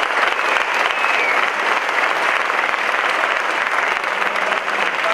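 Conference audience applauding steadily, with dense clapping throughout.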